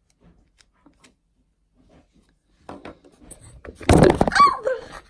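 A few faint clicks, then a loud clatter of knocks and rubbing about four seconds in as the phone filming the scene is knocked over and handled.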